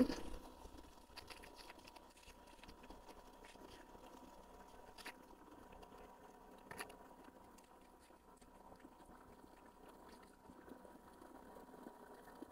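Very quiet: soft rustling from fingers rubbing cream into the face, with a few faint clicks about five and seven seconds in, over a faint steady hum.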